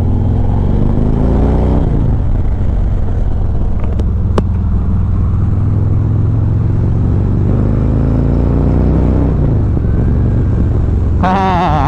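Harley-Davidson Road Glide's Milwaukee-Eight V-twin running through freshly fitted Vance & Hines slip-on mufflers while riding: a deep, bassy note that is not very loud. The revs climb under acceleration in the first couple of seconds and again near the end, then drop back. Two sharp clicks come about four seconds in.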